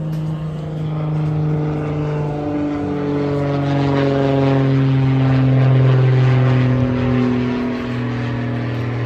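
Propeller aircraft flying low overhead: a loud, steady engine drone whose pitch drops about two and a half seconds in as it passes.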